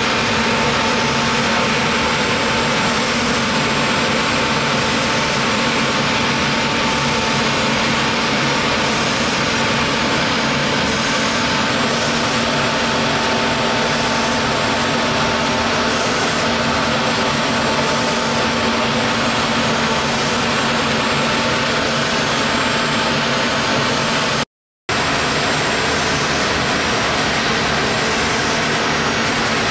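CNC router spindle running with its bit cutting thin plastic sheet: a steady, loud hiss and whine over a constant hum. It cuts out completely for a moment about three-quarters of the way through, then resumes unchanged.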